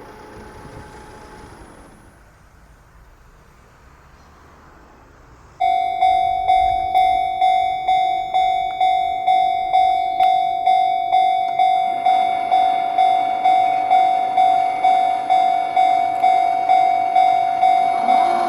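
Japanese railway level crossing warning bell starting suddenly about five and a half seconds in, ringing its electronic "kan-kan" tone at an even pace of about two strikes a second. A rushing noise grows beneath it in the second half.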